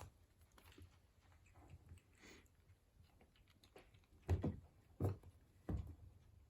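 A kitten playing with a toy: faint scattered taps and scuffs, then three louder thumps in quick succession in the second half.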